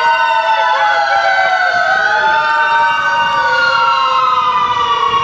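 Several fire-service sirens wailing at once and out of step. Each climbs quickly in pitch, then sinks slowly before climbing again, so the wails overlap.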